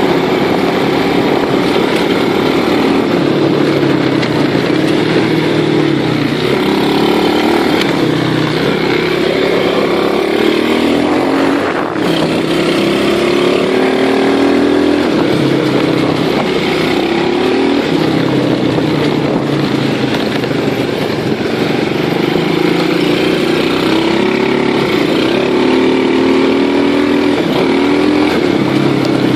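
Loncin 125cc ATV's small single-cylinder four-stroke engine running under way, its pitch rising and falling again and again as the throttle is opened and eased. The sound dips briefly about twelve seconds in.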